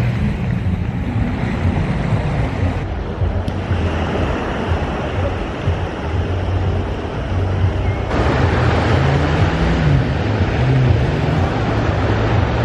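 Beach ambience: waves washing ashore and wind on the microphone, over a low steady drone. The sound changes abruptly twice, about three and a half and eight seconds in.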